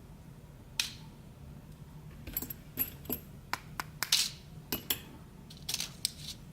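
Small metal lock parts (pins, drivers and tools) clicking and clinking as a pin-tumbler lock cylinder is taken apart. About a dozen sharp, irregular clicks, coming more often from about two seconds in.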